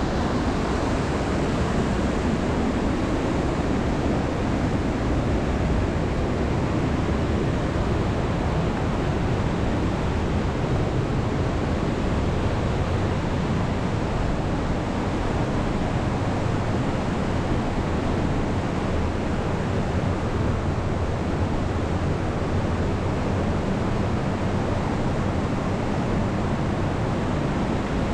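Steady rush of the Leutascher Ache mountain river flowing through the narrow gorge, an even, unbroken water noise.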